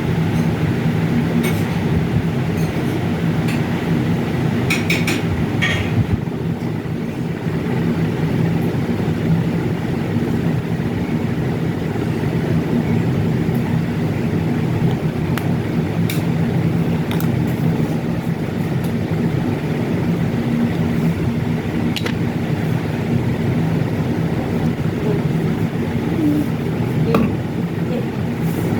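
Steady low rumbling drone with a faint hum, with a few light clicks and taps scattered through it.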